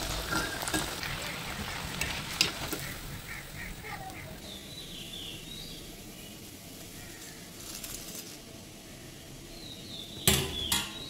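Cutlets shallow-frying in oil in a steel kadai, sizzling, with a slotted spoon clicking and scraping against the pan. The sizzle stops about four seconds in, leaving faint bird calls and two sharp knocks near the end.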